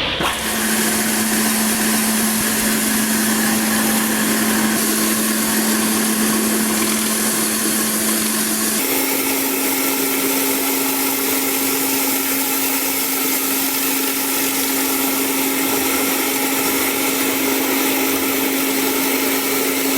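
Pressure washer running steadily with the hiss of its water spray, over a steady motor hum that steps up to a slightly higher pitch about nine seconds in.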